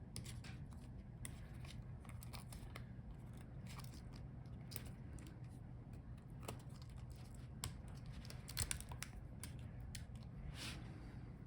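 Faint scattered clicks and scratches of small laptop parts being handled by hand: ribbon-cable connectors and their retaining clips being worked. There is a brief cluster of louder clicks near nine seconds in, over a low steady hum.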